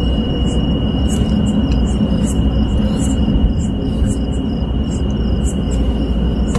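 Insects, likely crickets, chirping in short high pulses about three times a second over a constant high whine. A loud, steady rumbling noise sits underneath and is the loudest part.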